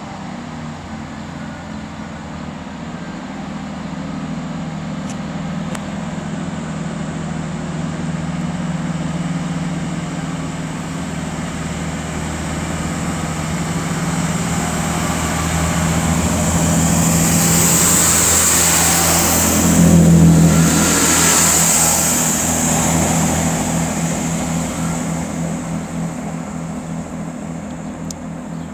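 A Class 165 diesel multiple unit pulling away from the platform and running past, its diesel engine drone building steadily. It is loudest about 18 to 21 seconds in, with a hiss of wheels on rail as it goes by, then fades away.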